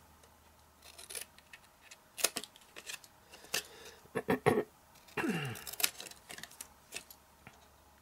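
Scissors snipping through black cardstock in a string of short, irregular cuts.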